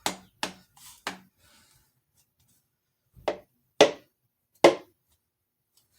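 Knocks on a piston top, tapping it down through a strap-type ring compressor into a cylinder bore of a Jeep 4.0 engine block: a few light taps, then three sharper, louder ones between about three and five seconds in.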